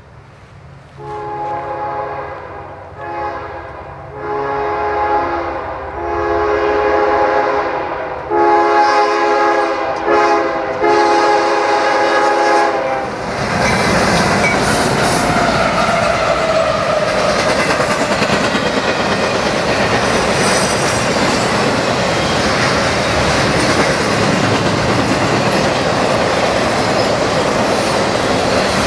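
CSX freight train's diesel locomotive sounding its multi-chime air horn in a series of about seven long and short blasts as it approaches. Then the locomotive and intermodal cars pass close by with a loud rush of wheels on rail and clickety-clack over the joints.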